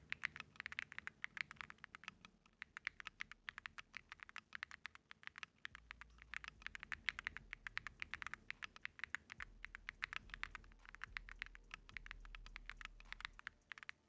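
Continuous fast typing on an Akko MOD 007 V3 mechanical keyboard fitted with Gateron Luciola linear switches and clear keycaps: a quick, faint run of many key clacks a second.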